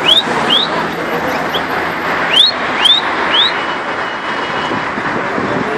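Loud street noise of traffic and a murmuring crowd. About six short rising chirps come through it over the first three and a half seconds.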